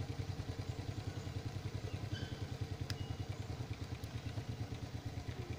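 An engine idling: a steady, low, rapid and even throb, with a brief click about three seconds in.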